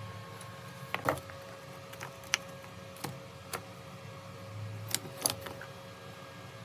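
Scattered light clicks and knocks of hands and tools working with PPR plastic pipes and fittings, about seven in all, over a steady low hum.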